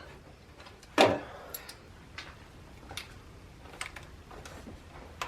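Wrench clicking on a bolt being tightened in the engine bay: one sharp click about a second in, then a few lighter, irregular clicks.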